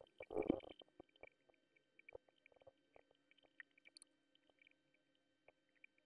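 Faint scattered taps and clicks of a stylus working on a pen display, over a steady low electrical hum. About half a second in there is one short, louder rustling noise.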